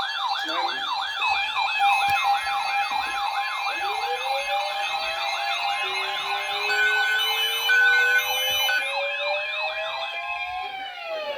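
Electronic sirens overlapping. One siren warbles fast and evenly over a steady tone, with a few short beeps. From about four seconds in, a second siren climbs slowly in pitch, and near the end a sweep starts falling.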